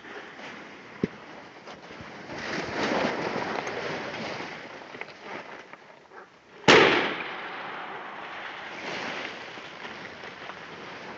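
A single shotgun shot from a double-barrelled shotgun a little past halfway through, sudden and loud with a short decaying tail. Around it are the rustle of footsteps through low leafy vegetation.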